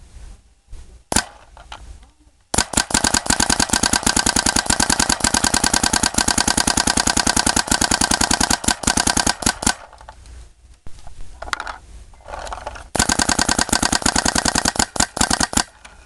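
Smart Parts Vibe paintball marker, fitted with a CP one-piece barrel and a Shocktech bolt and running on CO2, firing. A single shot comes about a second in, then a long rapid string of shots lasting about seven seconds, and after a pause a second rapid string of nearly three seconds.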